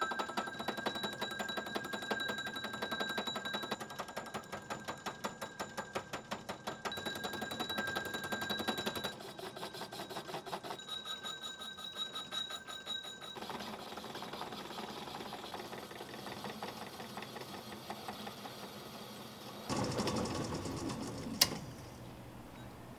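Home-built Gingery metal lathe running, with a fast, even clatter and a steady whine. Partway through the rhythm gives way to a rougher, less even sound. Near the end there is a louder stretch and a single sharp click.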